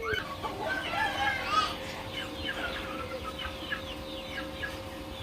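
Chickens clucking: a run of many short, falling calls one after another.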